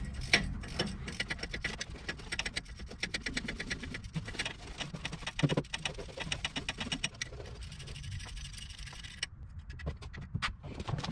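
Hand ratchet clicking in rapid runs as the bolts holding the front wheel hub assembly are worked loose.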